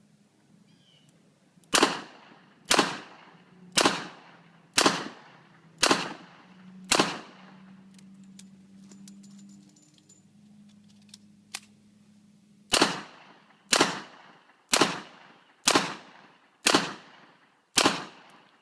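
Smith & Wesson M1917 revolver firing six shots about a second apart, a pause of about six seconds filled with faint clicks and rattles of a quick reload, then six more shots at the same pace.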